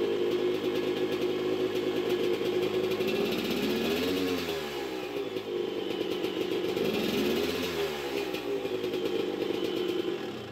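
Suzuki RM250 two-stroke single-cylinder engine running at a high idle, its revs rising and falling twice as the handlebars are turned to the right. The throttle cable, run on the left side of the frame, is pulled tight by the turn and opens the throttle.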